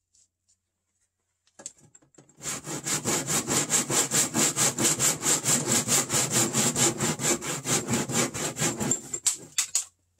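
Hand saw cutting through wood with quick, even back-and-forth strokes, starting about two seconds in and stopping just before the end.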